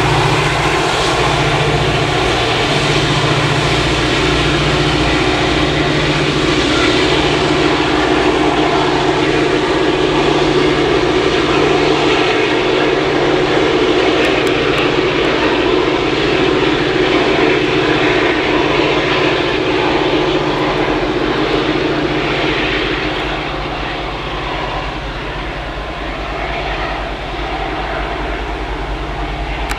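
Diesel locomotives going by with a loud, steady drone and a strong low hum, which eases off somewhat about three quarters of the way through.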